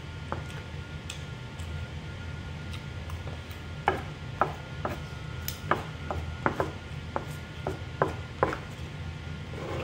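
Metal fork clicking and scraping against a paper-wrapped rice meal on a table: about a dozen short sharp clicks, starting about four seconds in, over a steady low hum.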